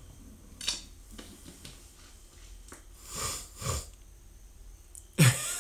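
Quiet room tone with a brief hiss under a second in, then two short sniffs about three seconds in.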